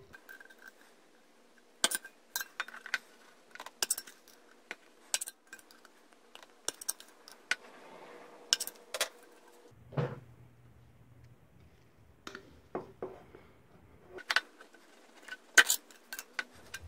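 Thin steel can clicking and clinking in the hands as a pointed awl is pushed through its wall to punch small holes: a string of irregular sharp metallic clicks, the loudest near the end.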